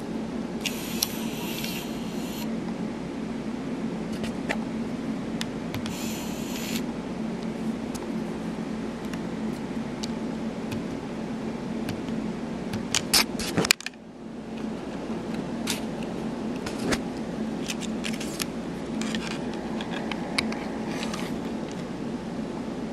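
HP-67 calculator's card-reader motor whirring as a magnetic program card is drawn through, once for about two seconds near the start and again briefly around six seconds in; the faulty reader is struggling and the card fails to read. Sharp clicks from handling follow about halfway through and again later.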